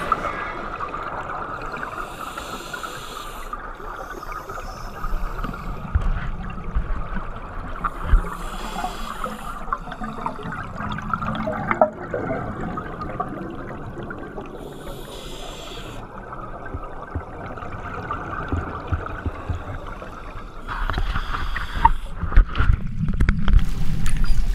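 Scuba divers' exhaled breath bubbling out of their regulators, heard underwater: a burst of bubbling about every six seconds over a steady low underwater rumble, the last burst near the end the longest and loudest.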